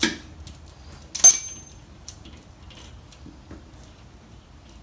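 Small metal parts and tools being handled at a motorcycle's shock mount: a click at the start, then one sharp metallic clink about a second in that rings briefly and is the loudest sound, followed by light scattered ticks.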